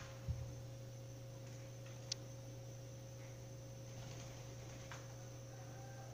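Faint, steady low electrical hum, with a soft thump about a third of a second in and a single sharp click a little after two seconds.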